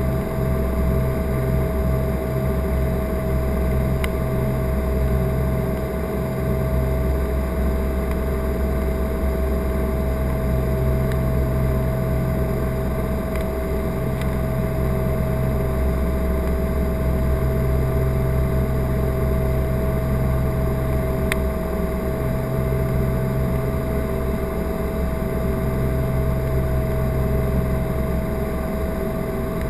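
Cabin sound of a Cessna 414A in flight: its twin turbocharged Continental piston engines and propellers droning steadily, with a throbbing beat between the two engines. The beat pulses quickly at first and slows to long swells after about six seconds, over a steady high tone.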